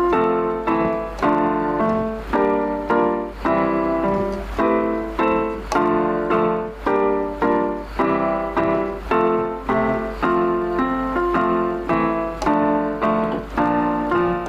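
Background music: a piano piece with notes struck at a steady pulse.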